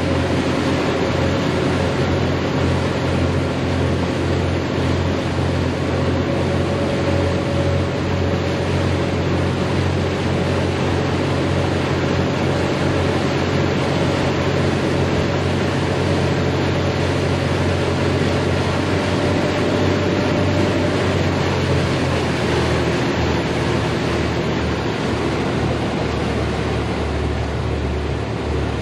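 Steady drone of boat engines underway, with low hum lines under an even rushing hiss of wind and water. The low hum changes about two-thirds of the way through.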